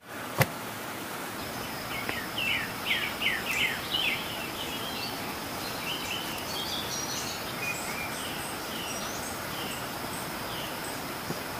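Birds chirping: a quick run of descending chirps, then scattered higher chirps, over an even hiss with a steady high insect drone. A single sharp click sounds just after the start.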